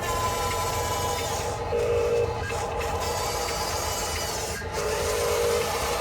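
Small electric motors and plastic gearboxes of RC construction trucks whining and grinding as they run, with the motor tone shifting twice as the throttle changes.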